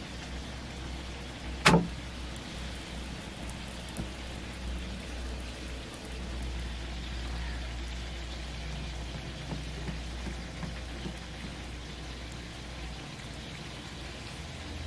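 Steady crackling hiss of a wood fire burning under an iron griddle with flatbread cooking on it, with one sharp knock about two seconds in and a few small ticks later.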